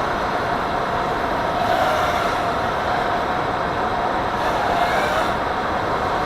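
Racing drone's motors whining, the pitch wavering up and down with the throttle, over a steady rushing noise.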